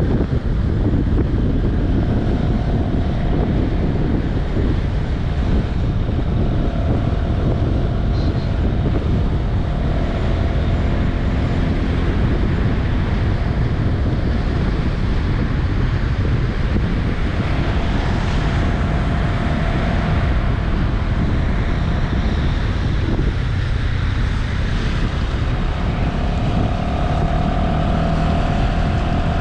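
Wind buffeting the microphone on a moving Honda Vision 110cc scooter, with its single-cylinder engine running underneath. Faint whining tones come and go several times.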